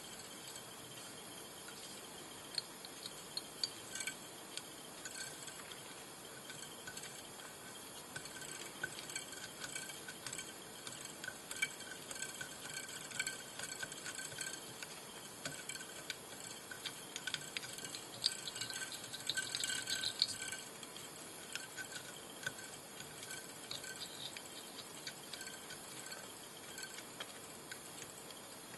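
Fine copper wire being wound in close turns around a fly hook held in a vise: many small, faint ticks and scratches with short faint squeaks now and then, busiest about two-thirds of the way through, over a steady hiss.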